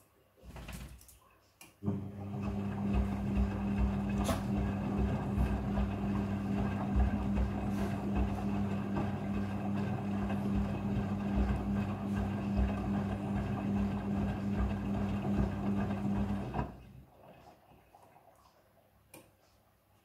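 Midea front-loading washing machine tumbling a wet blanket during the rinse: the drum motor runs with a steady hum over water sloshing, starting about two seconds in and stopping near the end as the drum pauses.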